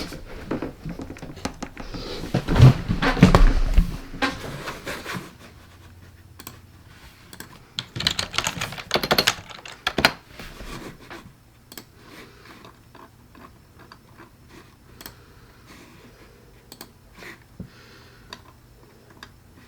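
Typing on a computer keyboard: quick runs of key clicks in two clusters, then scattered single keystrokes. A few heavier, dull thumps come about two to four seconds in.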